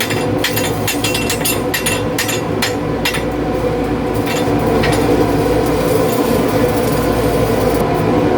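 Electric arc welding: the arc crackles and pops irregularly over a steady hum from the welding machine. The crackling is thick in the first three seconds, then thins to occasional pops.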